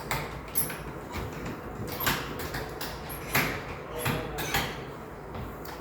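Scattered clicks and knocks of hands working the controls of a hands-on museum exhibit, several sharp ones about two and three seconds in.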